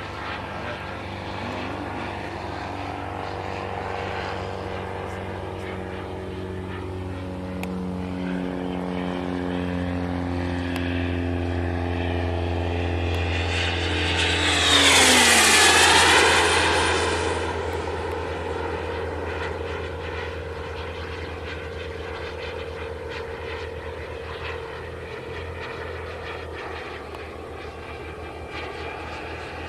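Roocky model aircraft flying overhead: a steady engine drone made of several tones. About fifteen seconds in it swells to a loud rushing pass, its pitch dropping as it goes by, then it settles back to a steady drone.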